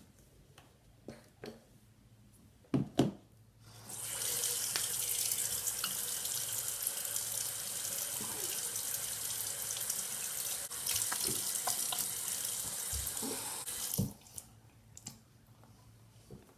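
Bathroom sink tap running steadily into the basin, turned on about four seconds in and shut off about ten seconds later. A couple of knocks come just before the water starts, and a thump as it stops.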